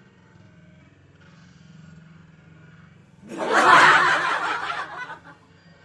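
A burst of laughter about halfway through, lasting nearly two seconds and fading out, after a few seconds of faint low hum.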